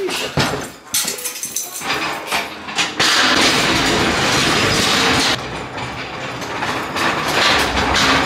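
A small hand cart being wheeled over an old wooden plank floor. Its wheels and metal frame rattle, with separate knocks and bangs at first, then a continuous rolling clatter from about three seconds in.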